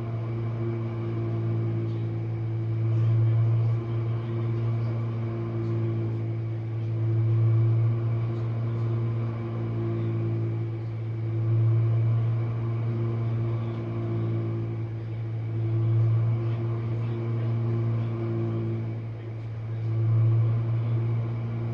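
Jenn-Air dishwasher running its wash cycle: a steady motor hum with water sloshing, swelling and fading in a slow rhythm about every four seconds.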